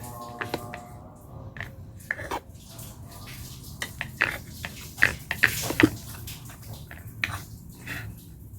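Kitchen prep handling: irregular sharp clicks and knocks of utensils and ingredients being worked, busiest about four to six seconds in.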